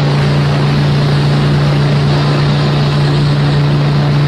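Ship's horn sounding one long, loud, deep blast, held at a steady pitch over a rushing noise.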